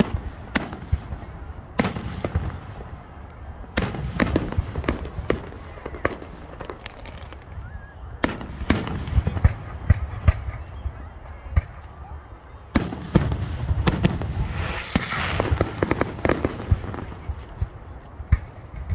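Aerial fireworks display: shells bursting one after another in sharp, irregular bangs over a low rumbling echo. The bursts crowd together into a denser spell about three-quarters of the way through.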